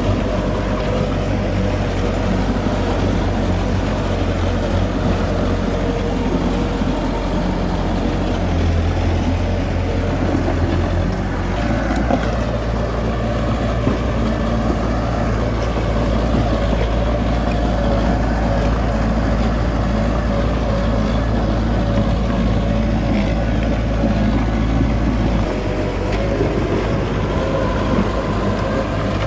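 Heavy diesel machinery engine running steadily. Its low note shifts twice, about a third of the way in and again near the end, as the load or throttle changes.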